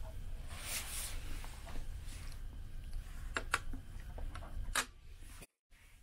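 Metal spoons scraping dessert off a ceramic plate and out of a cup, with a few sharp clinks of spoon on dish past the middle, over a steady low hum.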